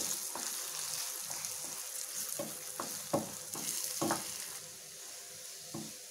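Eggs sizzling in hot oil in a non-stick frying pan while a wooden spatula stirs and breaks them up, with a string of short scrapes and taps against the pan. The sizzle dies down a little near the end as the eggs set into scramble.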